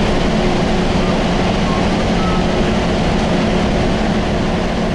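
Bus engine and road noise heard from inside the cabin, a steady loud hum.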